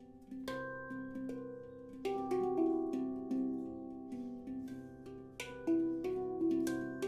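Handpan in C Aegean tuning, made of ember steel, played with bare hands. After a brief lull, single struck notes ring out and overlap. Quicker runs of strikes come about two seconds in and again near the end.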